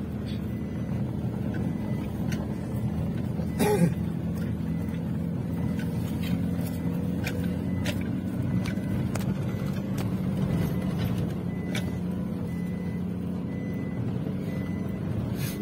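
Toyota Hilux Revo pickup driving slowly over a rough, rutted dirt track, heard from inside the cab: a steady low engine and road drone with scattered small knocks and clicks, and a sharper knock about four seconds in.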